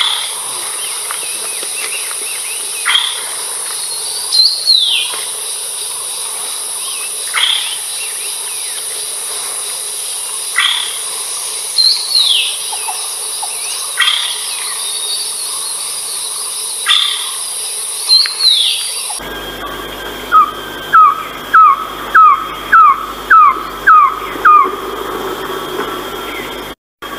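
Philippine trogon calling, with a steady high insect drone in the background. Single falling call notes come every few seconds. Then, in a different recording, a run of about eight short, loud falling notes comes at a little under two a second.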